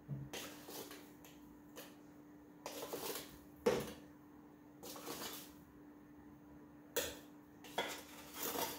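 Metal spoon scooping chocolate drink powder from a tin and tapping it off into a metal pot of milk: a series of short scrapes and clinks, the loudest about four seconds in.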